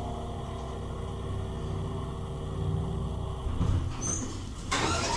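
Hydraulic elevator's dry-mounted pump motor running while the car travels, a low hum whose musical whine drops away just after the start. About four and a half seconds in, a loud rushing noise comes in over it.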